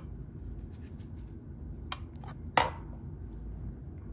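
Hard plastic graded-card slabs clicking as they are handled and set down on a stack, with one sharper clack about two and a half seconds in.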